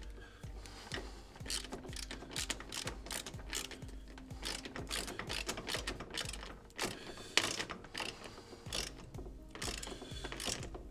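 Hand ratchet clicking in short runs as bolts are tightened down into the kick panel.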